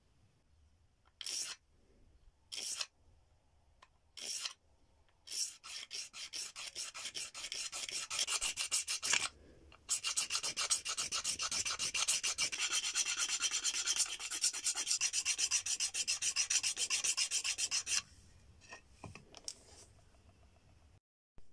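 A stone flake scraping along an animal leg bone, shaving it down to shape a dagger blade. A few separate strokes at first, then rapid back-and-forth scraping from about six seconds in, a brief pause, then fast steady scraping that stops a few seconds before the end.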